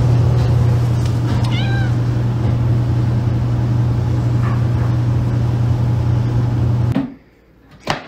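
A domestic cat gives two short meows, the first clearer about a second and a half in, the second fainter about four and a half seconds in. Under them runs a loud steady low hum that cuts off suddenly about seven seconds in, followed by a sharp click near the end.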